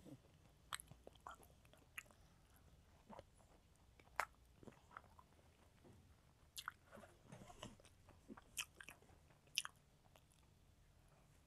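Close-miked chewing of a mouthful of rice and curry eaten by hand, with irregular wet mouth clicks and lip smacks, a couple of them sharper than the rest.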